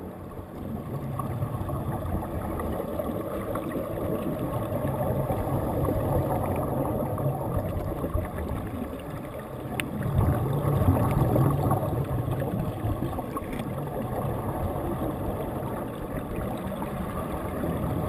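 Muffled underwater rumble and bubbling heard through a sealed GoPro dive housing, with air streaming from the divers' air-fed helmets; it grows somewhat louder about ten seconds in.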